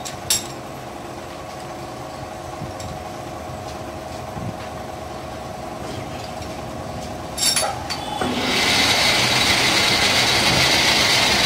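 Metal lathe running with a steady hum, a sharp click shortly after the start and a clatter of metal about seven and a half seconds in. Then a much louder steady machine noise with a high hiss takes over and keeps going.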